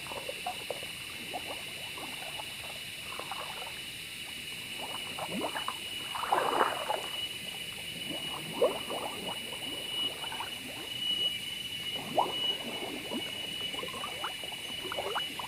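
Shallow swamp water sloshing and splashing in irregular bursts as someone wades through it, over a steady high-pitched whine.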